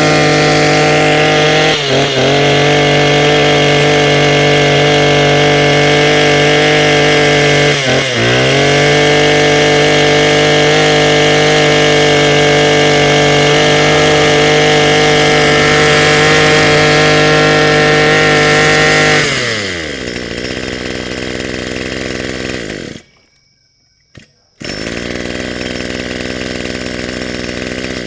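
Small two-stroke brush cutter engine running at high throttle. About two and eight seconds in, the revs dip briefly and pick straight back up, and later they ease down to a lower idle.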